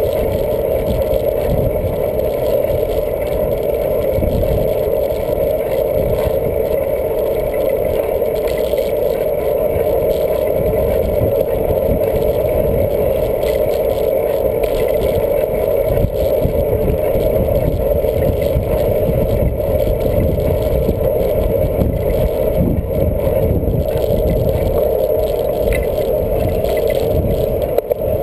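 Steady wind rush and tyre rumble on pavement, picked up by a camera riding on a moving bicycle. There is a constant mid-pitched drone and one small jolt about halfway through.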